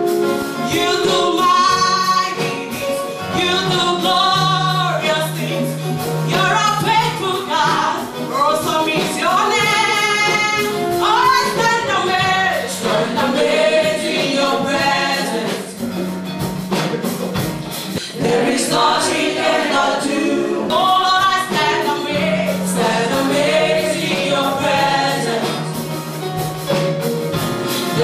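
Gospel praise and worship song: voices singing over instrumental accompaniment with long held low notes.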